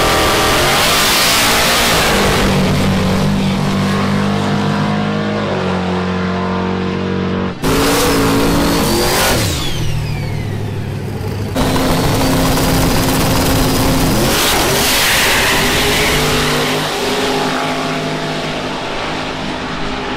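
Car engines revving and held at high rpm, the pitch stepping up and down, with abrupt changes about a third and halfway through.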